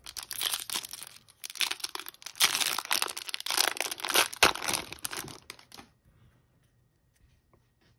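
Foil wrapper of a 2021-22 MVP hockey card pack being torn open and crinkled by hand, a run of rustling, tearing noises that stops about six seconds in.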